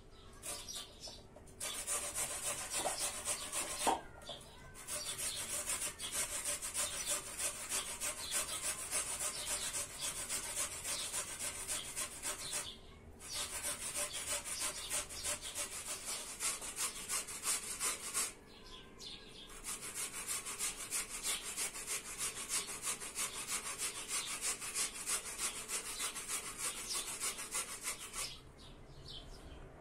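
A peeled potato being rubbed up and down a metal box grater in quick, steady rasping strokes, with a few short pauses as the grip is changed.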